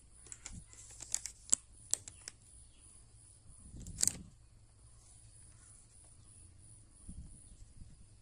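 Faint handling sounds: a few small sharp clicks in the first two seconds and a brief rustle about four seconds in, over a low steady hum.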